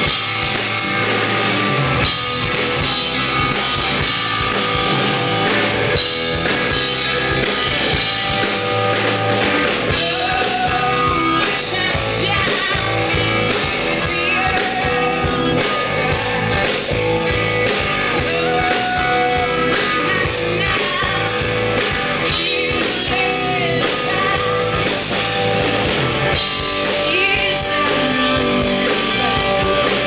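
Live rock band playing: electric guitars, bass and drum kit, with a woman singing lead.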